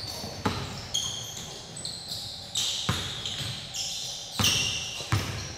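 A basketball bouncing on a hardwood gym floor in irregular thuds, with short high squeaks from sneakers on the court.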